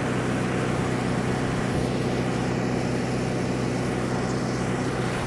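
Tractor-driven grain-bag unloader running steadily, its auger pouring grain into a semi-truck trailer: a steady engine drone at a fixed pitch under a constant rush of noise.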